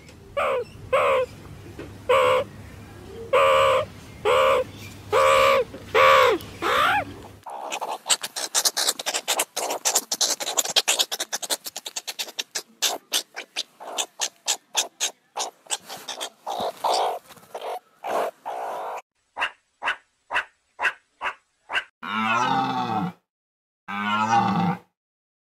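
Meerkats calling: a run of about eight short, repeated pitched calls, then fast, dense chattering that thins to separate clicks. Near the end come two longer calls that waver in pitch.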